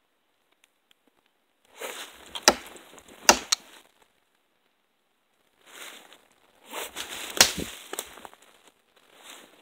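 Footsteps crunching through dry leaves and brush in two spells of a couple of seconds each, with a few sharp twig snaps; the loudest snap comes about seven and a half seconds in.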